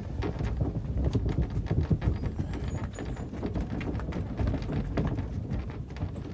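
Wooden-wheeled handcarts rolling and clattering, with a dense run of irregular knocks over a low rumble.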